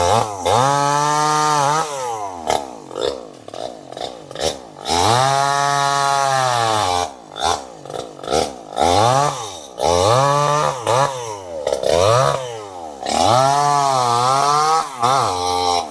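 Chainsaw's two-stroke engine revved up and down repeatedly, each rev climbing in pitch, holding briefly and falling back to a rough, choppy idle; the first revs last about two seconds, and from about eight seconds in they come as shorter, quicker blips of the throttle.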